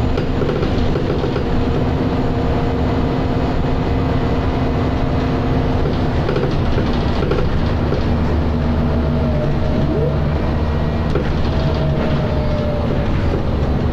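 Scania L94UA bus's diesel engine and ZF automatic gearbox heard from inside the cabin while the bus is under way. The gearbox gives a steady whine over the engine's rumble; the tones change about six seconds in, and a higher whine glides slightly from about nine seconds to near the end.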